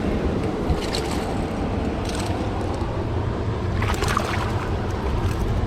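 Steady rush of flowing river water with wind on the microphone, and a few brief splashes from a hooked smallmouth bass being played in, about 1, 2 and 4 seconds in.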